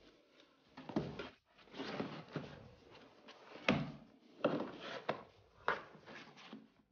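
A fibrous floor mat being handled and pressed into place on a Honda Beat scooter's floorboard: a string of irregular scrapes and rustles with a few sharp knocks.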